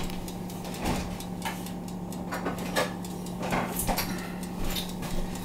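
Light knocks and clinks of kitchen things being handled off to one side, a scattered handful of them, as a measuring spoon and a jar of yeast are got out. A steady low hum runs underneath.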